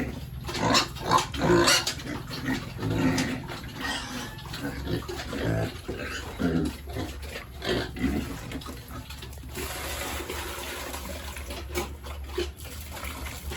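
Pigs grunting and squealing, with irregular calls that are loudest in the first two seconds. From about nine and a half seconds in, a steady rush of water takes over.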